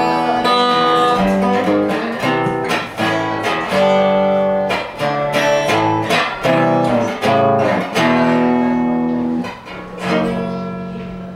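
Guitar strumming chords, with a last chord left ringing and fading near the end.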